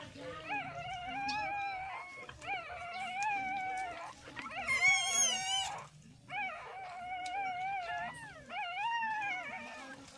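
Newborn puppies crying in almost unbroken high-pitched squeals that waver up and down. About halfway through comes one louder, shriller wavering cry.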